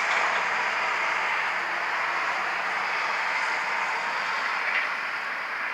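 Road traffic going past: a steady hiss of tyres and engines with no siren tone, slowly fading.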